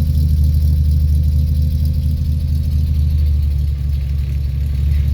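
1969 Jeep CJ5 engine idling steadily after a cold start, its exhaust close by.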